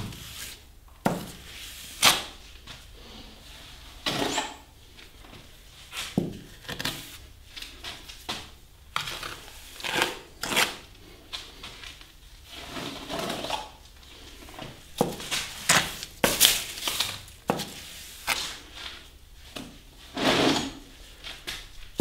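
Steel plastering trowel spreading and pressing wet plaster onto a door reveal, giving irregular scrapes and knocks against the masonry, one every second or so.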